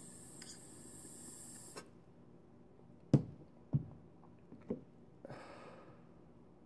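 Steady hiss with faint crackle from a dab rig as a dab is drawn through it, stopping about two seconds in. Then three knocks as the glass rig and dab tool are put down, the first the loudest, and a short breathy exhale of vapor near the end.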